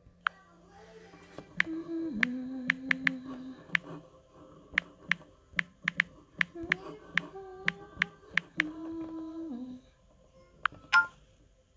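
A woman humming a slow tune with her mouth closed, with sharp clicks keeping time about twice a second. Two louder clicks come near the end.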